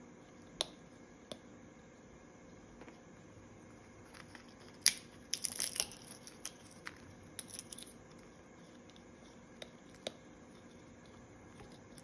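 Green-winged macaw picking at its food with its beak: scattered sharp clicks, and a brief cluster of crunching and crackling about five to six seconds in.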